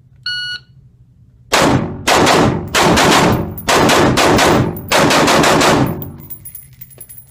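A shot-timer beep, then a rifle fired in a rapid string of shots that echo in an indoor range. Thin high ringing and small ticks near the end, like spent brass dropping on the floor.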